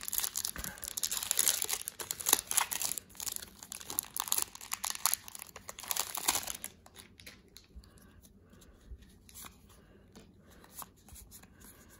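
Foil wrapper of a Pokémon trading-card booster pack being torn open and crinkled for about six seconds, then quieter soft ticks as the cards are handled.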